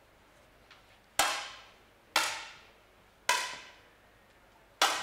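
Four 10 m air rifle shots fired on the range at uneven gaps of about a second. Each is a sharp crack with a short ringing tail.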